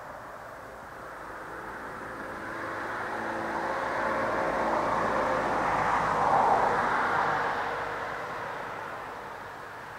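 A vehicle passing by unseen: its noise swells over several seconds, is loudest about six and a half seconds in, then fades away.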